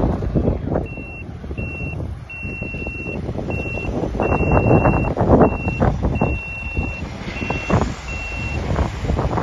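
Fire engine driving past, its engine rumbling under heavy wind buffeting on the microphone. A single high electronic beep sounds on and off at uneven intervals, some beeps short and some nearly a second long.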